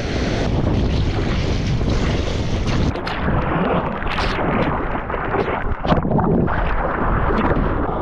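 Strong wind buffeting the microphone over choppy sea water sloshing around a board, with a few sudden splashes from about three seconds in.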